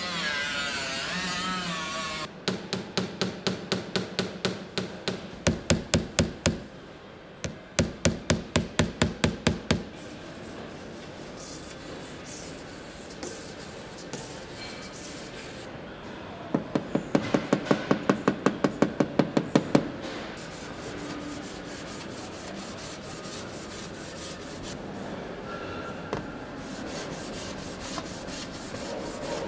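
Hand tools worked on a car's metal body panel: several runs of quick, even strokes, about four a second, then steady rubbing of the panel surface near the end.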